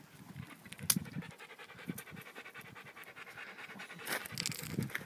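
A dog panting fast and steadily with its head down a rabbit hole it is digging. There is a louder burst of scraping near the end as it digs at the stony soil.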